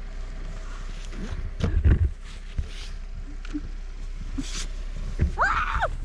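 A snow brush sweeping deep fresh snow off a car, heard as a series of swishes, with a cluster of low thuds about two seconds in and a short rising-and-falling squeal near the end.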